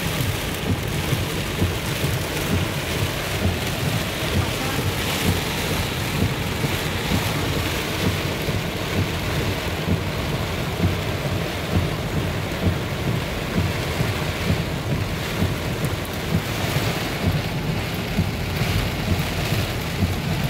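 Heavy rain beating on a moving car's roof and windshield, heard from inside the cabin as a loud, steady rushing noise with small, irregular surges.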